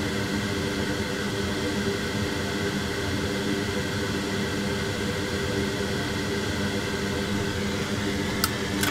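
Steady rushing airflow from a fan-driven bench blower, with a constant hum under it. Two short clicks near the end.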